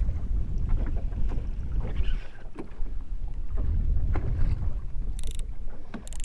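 Wind rumbling on the microphone aboard a small fishing boat, with water lapping at the hull and scattered small knocks. Two short, sharp bursts of high noise come near the end, the second just before it ends.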